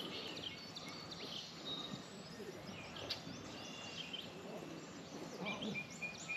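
Birds chirping and calling, many short high chirps and whistles over a steady background hiss of open-air ambience.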